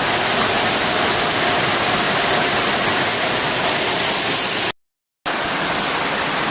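Heavy rain falling, a dense, steady hiss. The sound cuts out to total silence for about half a second just under five seconds in, then the rain resumes.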